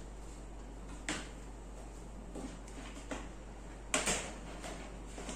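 Snap-on plastic lid of a storage tub being worked loose and lifted off: a few dull plastic clicks and knocks, the clearest about a second in and just before four seconds.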